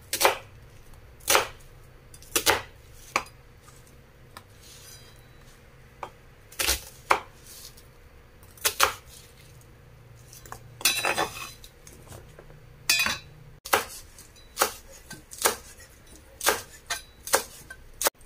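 Chef's knife cutting through an onion and knocking on a cutting board: single sharp cuts a second or two apart, with a short clattering scrape about eleven seconds in.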